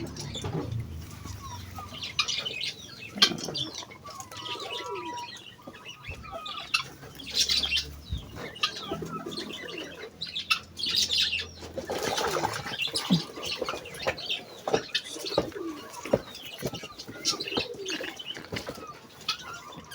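Chickens making soft calls and chirps, with short bursts of flapping and scuffling every few seconds.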